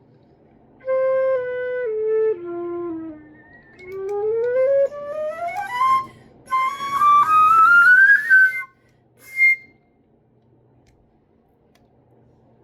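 Student flute played in short runs: a few notes stepping downward into the low register, then a quick upward run climbing into the high register, and a brief high note near the end. It is a flute brought in for repair being tried out.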